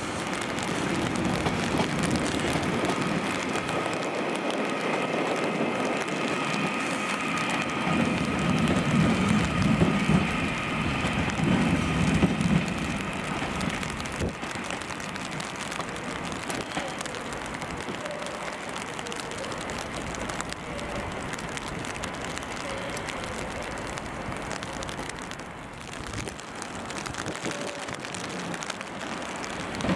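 Northern class 331 electric multiple unit moving, with a steady motor whine over a low rumble that swells and then cuts off about 13 seconds in. After that only a steady hiss of rain and wind remains.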